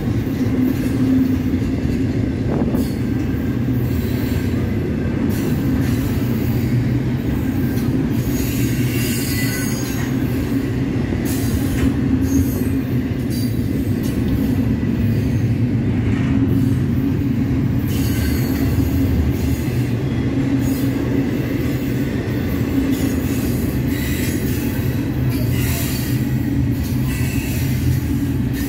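Double-stack intermodal freight train's well cars rolling past: a steady low rumble of steel wheels on rail, with intermittent high-pitched wheel squeals coming and going.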